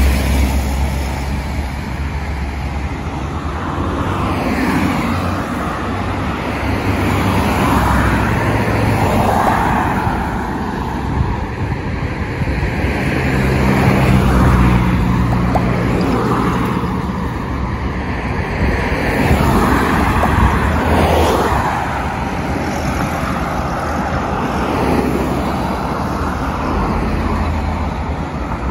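Road traffic, with cars passing now and then, each swelling and fading over a steady low rumble.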